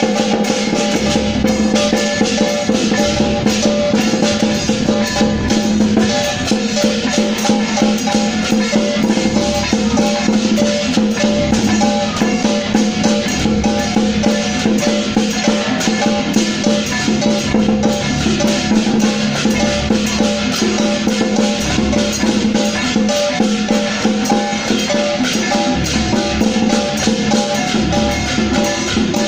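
Taiwanese temple-procession percussion troupe playing: continuous drumming with other percussion, over steady held tones.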